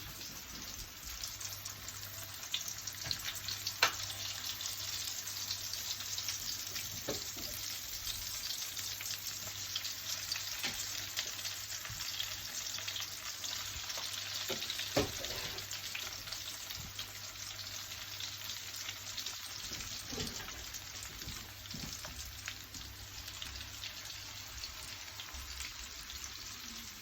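Parboiled, fluffed potatoes sizzling in a pan of very hot oil, a steady hiss with a few sharp knocks as potatoes are added.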